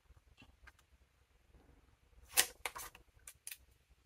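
Paper and sticker-sheet handling on a desk: a quick cluster of sharp clicks and rustles about two and a half seconds in, then two smaller clicks.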